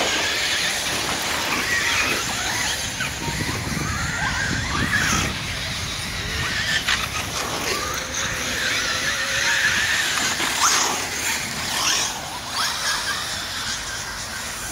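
Radio-controlled truggies racing on a dirt track, their motors whining up and down in pitch as the cars accelerate, brake and pass.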